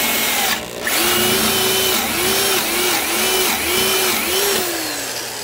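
Porter-Cable 2610 7-amp corded drill turning a spade bit into a block of wood. The motor whine cuts out briefly about half a second in, then runs again, its pitch dipping and recovering several times as the bit bites. It winds down near the end.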